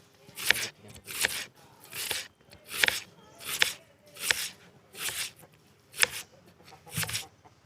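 Knife chopping on a cutting board in a steady rhythm, a sharp stroke about every three quarters of a second.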